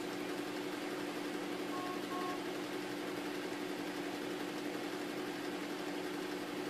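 Steady low electronic hum with a faint hiss, and two short faint beeps about two seconds in.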